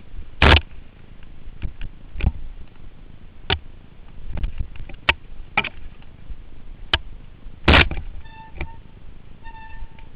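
Mountain bike clattering down a rough, rocky trail: sharp knocks and rattles as the wheels and frame hit stones, the loudest about half a second in and near eight seconds, over a steady rolling rush. Around eight seconds in, and again just before the end, the brakes give short pitched squeals.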